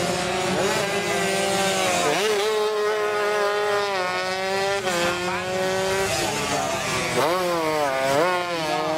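Tuned two-stroke underbone racing motorcycle engine running at high revs, its pitch dropping sharply and climbing back several times as the throttle is shut and reopened, deepest around seven to eight seconds in.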